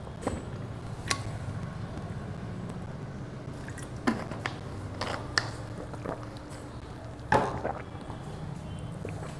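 Steady low room hum with a few scattered short clicks and knocks, the loudest about seven seconds in.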